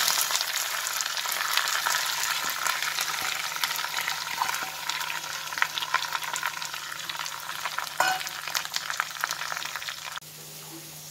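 Grated coconut frying in hot coconut oil with curry leaves and whole spices in a wok. It makes a crackling sizzle as it is poured in and stirred with a wooden spatula, fading gradually and then dropping off sharply near the end.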